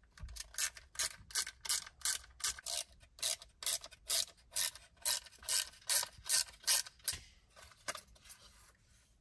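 Ratcheting screwdriver clicking in an even rhythm, about three clicks a second, while backing out Torx T10 screws; the clicks grow fainter and stop near the end.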